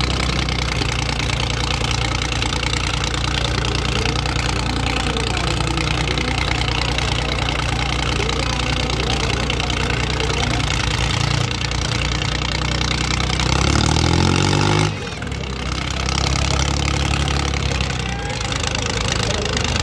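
Diesel engines of a Swaraj 744 FE and a New Holland 3630 Super tractor running hard under full load as they pull against each other, hitched back to back. About thirteen seconds in, one engine's pitch rises for a second, then the sound drops off sharply before the steady laboring resumes.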